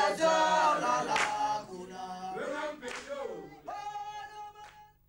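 Male choir singing over a steady low drone, with a few sharp strikes, growing quieter and fading out near the end.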